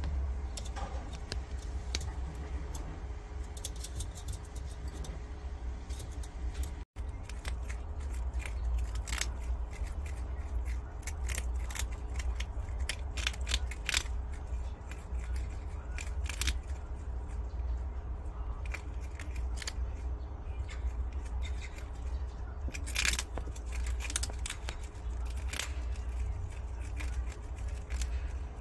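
Prairie dogs crunching hard green food pellets: a quick, irregular run of sharp crunches over a steady low hum, with a brief dropout to silence about seven seconds in.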